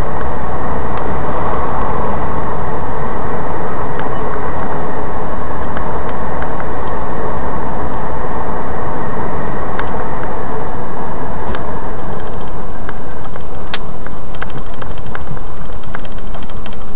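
Loud, steady car engine and road noise, as from inside a moving car, with scattered faint clicks that come more often near the end.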